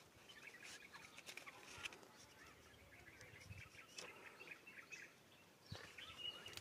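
Faint chirping of small birds: many short high calls in quick runs, with a few light clicks.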